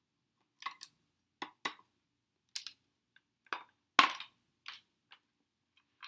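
A string of sharp clicks and knocks as a butter knife pries at the seam of an upright vacuum cleaner's plastic base housing, with the loudest one about four seconds in.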